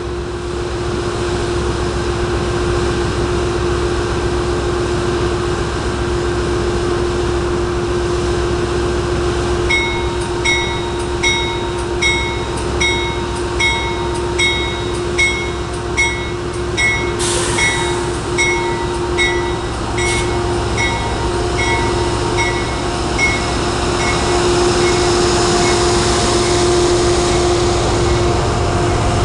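Metro-North GE Genesis P32AC-DM locomotive standing with a steady hum. From about ten seconds in its bell rings about once every three-quarters of a second, growing fainter, with two short hisses of air partway through. Near the end the sound swells as the locomotive pulls out.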